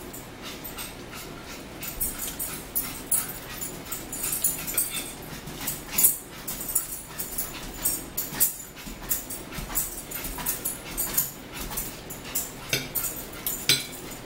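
Dog panting quickly, a rapid run of short breaths that starts about two seconds in.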